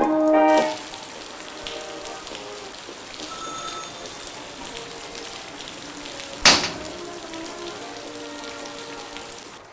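Steady rain falling, an even hiss, after background music stops under a second in. One sharp knock sounds about six and a half seconds in.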